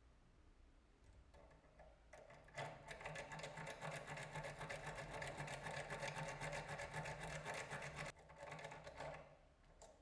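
A lock pick raked rapidly in and out of a brass pin-tumbler euro cylinder, the pins giving a fast metallic rattle. It starts about two and a half seconds in and stops about a second before the end, with a short break near the end.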